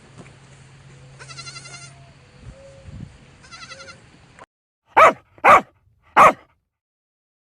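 Two faint, quavering bleats, then an abrupt cut to a dog barking loudly three times in quick succession.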